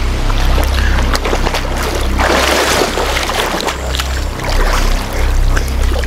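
River water splashing and sloshing as people wade waist-deep and churn it with their arms, with one louder splash about two seconds in.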